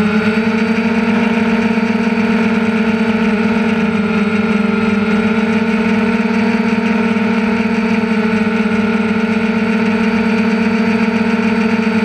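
DJI Phantom quadcopter's electric motors and propellers in flight, recorded by the GoPro riding on the drone itself: a loud, steady buzz with a nearly constant pitch.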